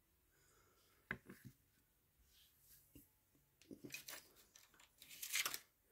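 Workshop handling noises: a few light clicks and knocks of parts being set down and moved, then a short scrape near the end.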